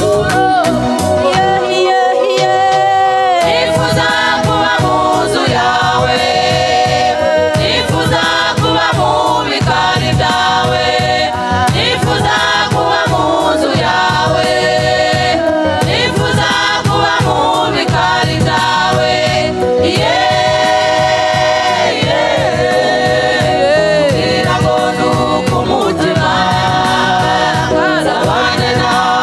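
Gospel choir singing with instrumental backing and a steady beat.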